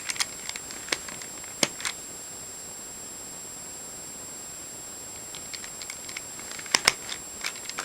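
Plastic center caps of an Eastsheen 4x4 puzzle being pressed onto their knobs: a few sharp plastic clicks near the start, then a run of small clicks and taps, the two loudest about seven seconds in. A steady high-pitched whine sits underneath.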